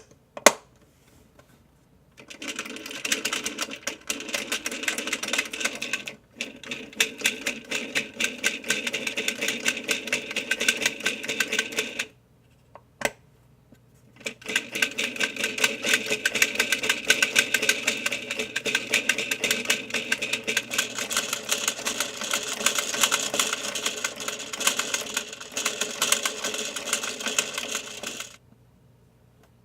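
Miniature plastic toy washing machine from a candy kit running: a dense, rapid rattle of clicks from its spinning mechanism. It goes in three long runs, with a short break about six seconds in and a longer one near the middle broken by a single click.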